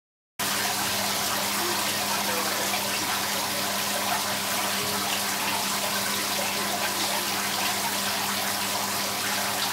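Water trickling and splashing over rock in a small artificial waterfall, a steady rush that starts abruptly about half a second in, with a faint steady hum underneath.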